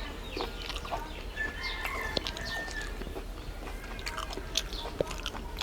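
Close-miked chewing and mouth sounds of someone eating rice with fish curry: wet smacks and small clicks. Birds chirp in the background.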